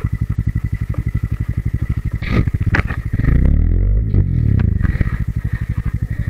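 Hero XPulse 200 4V single-cylinder engine running with a steady low firing beat. It is revved harder about two seconds in and back down near five seconds, as the rear wheel spins and sprays sand while the bike is bogged in soft sand. There are a few sharp scraping clicks as it revs up.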